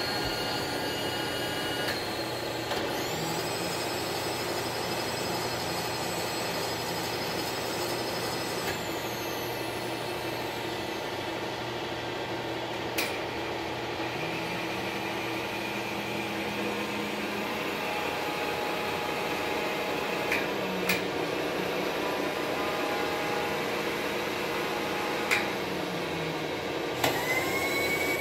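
A 2007 Cantek 3VH 230 V three-phase vertical milling machine running with a steady motor hum. A high whine rises twice and falls once as the machine changes speed, and a lower tone comes and goes in the second half. A few sharp clicks come from the levers and handles being worked.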